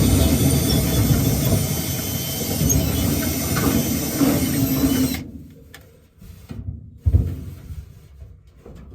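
Power drill running steadily while drilling a bolt hole for a truck-bed toolbox mount, stopping abruptly about five seconds in. A single sharp knock follows a couple of seconds later.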